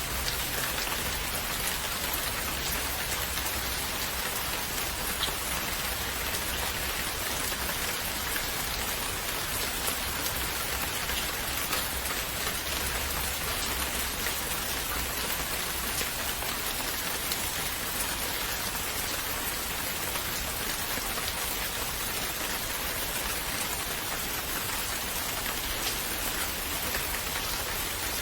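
Steady rain falling, with scattered faint drop ticks and a low rumble underneath.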